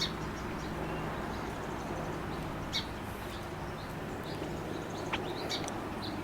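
Scattered short, high chirps of small birds, a few in all, over a steady outdoor background noise.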